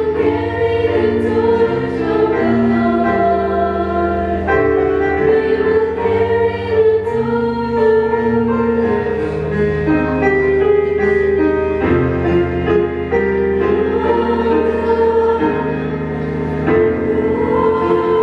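Five-voice female vocal group singing a gospel song in harmony through microphones, moving between long held notes.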